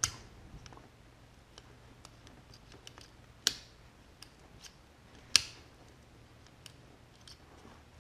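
Metal clicks from a truck door latch assembly as its lock lever is worked by hand: a click right at the start, louder ones about three and a half and five and a half seconds in, with faint small ticks between.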